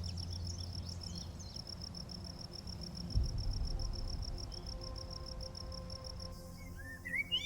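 Insect chirping in a steady pulsed rhythm, about seven pulses a second, over a low rumble. It stops abruptly about six seconds in, and a few short bird chirps follow near the end.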